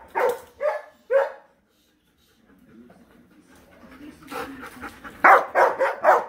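Poodles barking: three quick barks in the first second and a half, then a rapid run of barks in the last two seconds.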